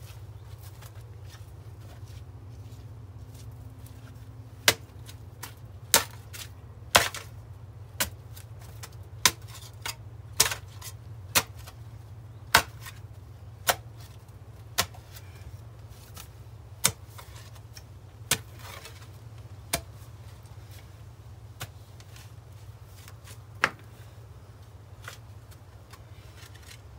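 Spade chopping into wet clay soil in a dug hole: sharp strikes about once a second for some fifteen seconds, over a steady low rumble.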